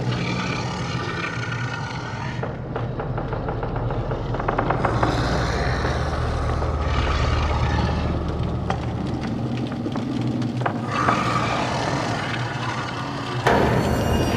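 Dark, sound-designed horror ambience: a steady low rumbling drone under shifting grinding, mechanical textures. A fast rattling run of clicks comes a few seconds in, and the sound swells louder near the end.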